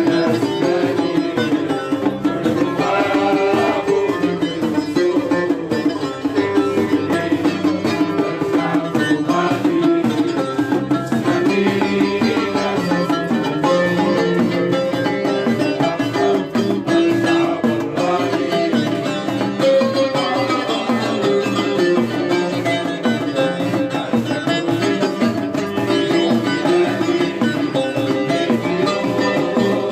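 Traditional music played on plucked string instruments over a steady hand-drum beat.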